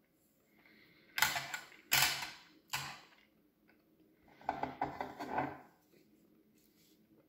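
Ration pack packaging and items being handled: three short, sharp rustles a little over a second in, then a quick run of clicks and rattles near the middle.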